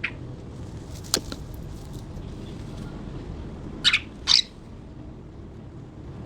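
Budgerigars calling: a faint short chirp at the start, a sharp click about a second in, then two loud short chirps in quick succession near four seconds, over a low steady background hum.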